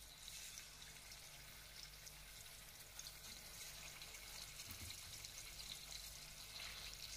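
Faint, steady crackling sizzle of fish pieces shallow-frying in hot oil in a kadai.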